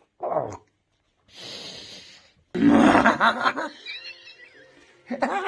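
A man's short grunt, then a loud burst of laughter starting about two and a half seconds in and trailing off.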